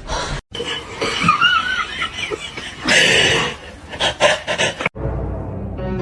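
People laughing and snickering, with a loud, breathy burst of laughter about three seconds in.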